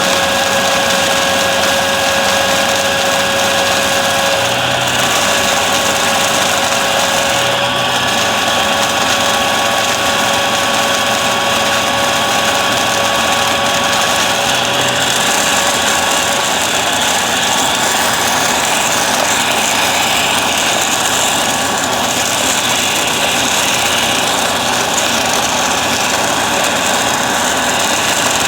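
Bissell vacuum cleaner running steadily: a loud rushing motor and airflow noise with a high whine, part of which fades out about halfway through.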